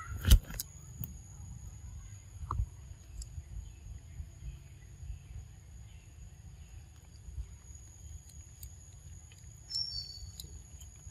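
Outdoor forest ambience: a steady high insect drone over a low rumble. There is a sharp knock just after the start, a few faint clicks, and a short two-note bird chirp, falling in pitch, near the end.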